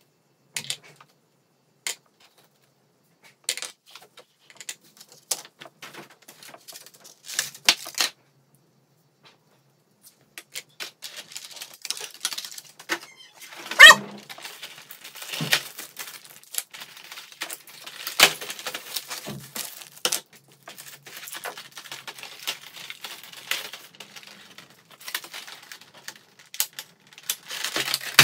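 Clear plastic blister trays and the action figure being handled: scattered clicks and taps at first, then from about ten seconds in continuous crinkling and crackling of the plastic, with a loud knock about fourteen seconds in.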